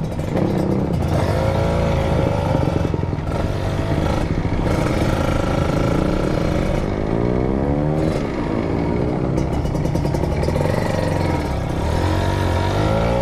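Motorcycle engine running while riding. Its pitch rises and falls repeatedly as the throttle is opened and eased off.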